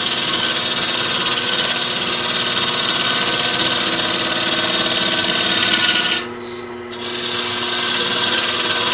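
Wood lathe running while a carbide cutter on a captured boring bar hollows out a spinning wooden vessel: a steady scraping hiss of the cut over the lathe's hum. About six seconds in the cutting noise drops out for under a second, leaving the hum, then resumes.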